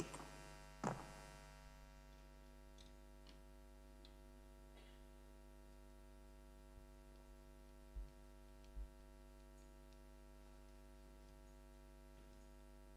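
Near silence: a steady electrical mains hum from the live sound system, with a few faint ticks and clicks and two soft low thumps about eight seconds in.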